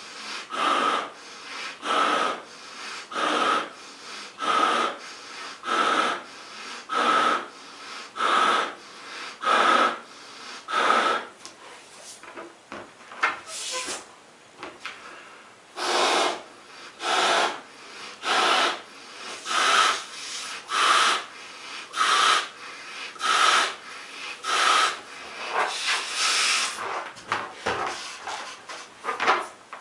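A 16-inch latex balloon being blown up by mouth: a steady rhythm of breaths pushed through its neck, about one every 1.3 seconds. The breaths break off for a few seconds near the middle, leaving only quiet rubbing, then pick up again.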